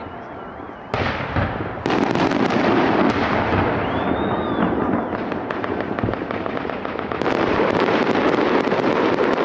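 Fireworks salute: a dense, continuous crackle and popping of shells bursting. It steps up louder about a second in and again just before two seconds, then surges once more about seven seconds in. A brief whistle rises and falls about four seconds in.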